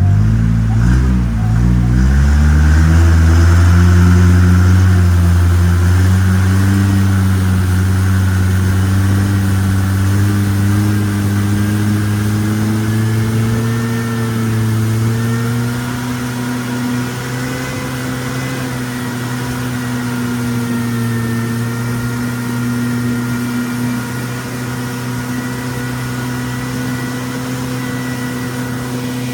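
Boat engine picking up speed over the first few seconds, its pitch rising, then running steadily at cruising speed.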